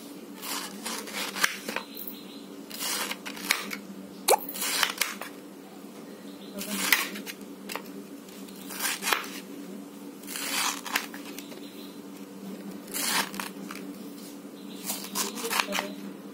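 Kitchen knife slicing through peeled pineapple flesh in a series of short cutting strokes, one every second or two, with one sharp click about four seconds in.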